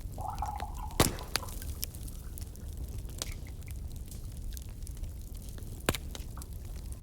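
Campfire crackling: scattered sharp pops and snaps over a low steady rumble, with two louder pops, one about a second in and one near the end.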